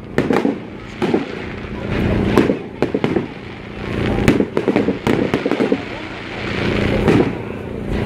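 Fireworks display: a rapid series of sharp bangs and pops as fireworks shoot up on sparkling trails and burst. Hissing swells build and fade three times, about every two to three seconds.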